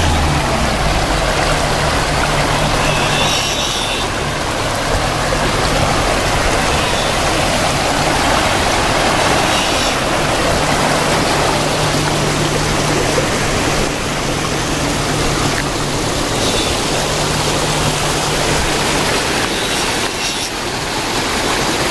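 Shallow stream rushing and splashing over rocks and small falls, a steady, loud rush of water.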